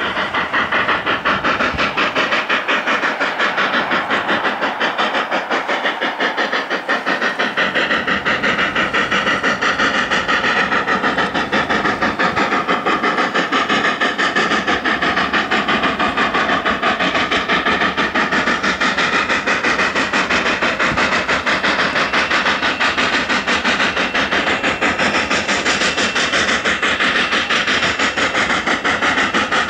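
Narrow-gauge Class K-37 2-8-2 steam locomotive's exhaust chuffing in a quick, even rhythm, the engine working hard.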